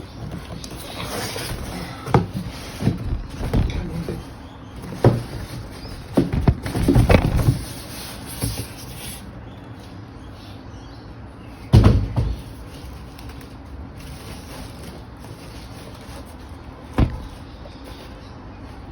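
A boxed computer case being worked out of its packaging: rustling and scuffing of cardboard and packing, with scattered knocks and thumps, the loudest about twelve seconds in.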